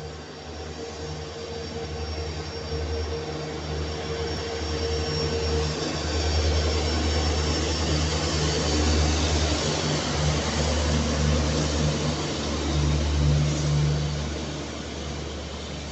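WDP4 diesel locomotive's EMD two-stroke engine running as it hauls a Rajdhani Express into the station. The engine sound grows louder as the locomotive passes close by, between about six and thirteen seconds in, then eases as the passenger coaches roll past on the rails.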